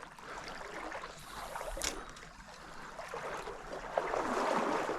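Stream water running and trickling, growing louder near the end, with a couple of small clicks.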